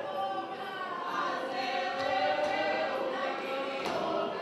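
A mixed group of men and women singing together without instruments, several voices holding long notes as they dance a circle dance, with a sharp knock near the end.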